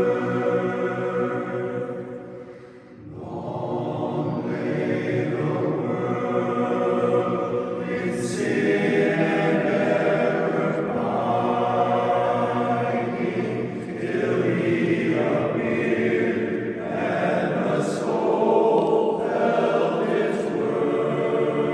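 Barbershop chorus singing a cappella in close harmony, with held chords and a short breath between phrases about three seconds in.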